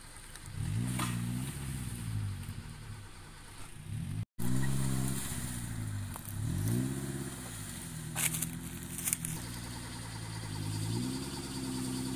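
Off-road vehicle engine revving up and down repeatedly under load, its pitch rising and falling several times. Two sharp clicks come about eight and nine seconds in.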